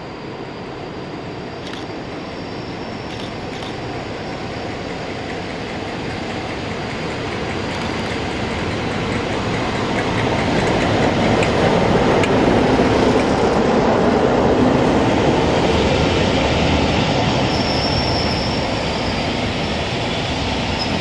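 WCRC Class 47 diesel locomotive 47237 approaching and running through the station hauling a rake of coaches. The engine and rail noise build steadily and are loudest as the locomotive passes, about halfway through. The coaches then rumble by, with a high wheel squeal near the end.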